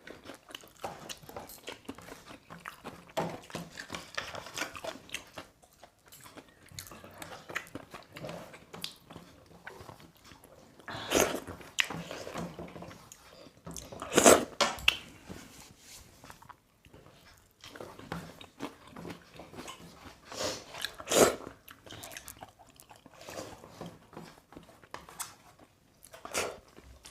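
Close-up eating sounds: people chewing and crunching food, with many small mouth clicks and a few louder, sharper crunches spread through.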